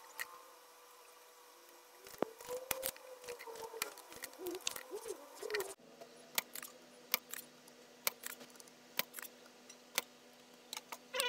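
Spring-loaded desoldering pump (solder sucker) working on a circuit board: repeated sharp clicks and snaps, with squeaking from the plunger seal between about two and six seconds in. It is pulling solder from the joints to free parts from an old computer power supply board.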